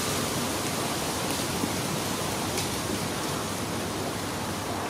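A steady, even hiss, with a few faint ticks of a carving knife taking cuts in a wooden spoon.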